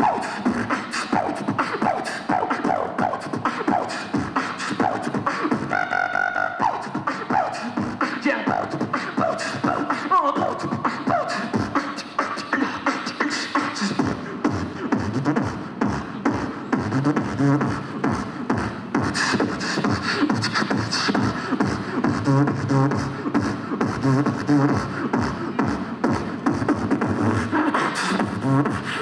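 A beatboxer performing live through a microphone and PA: a steady, rhythmic vocal beat of percussive mouth sounds.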